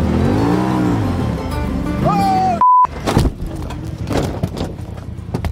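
Polaris RZR Turbo side-by-side's engine revving up and down under background music, then a short censor bleep about halfway through, followed by knocks and clatter as the machine tips over on a turn.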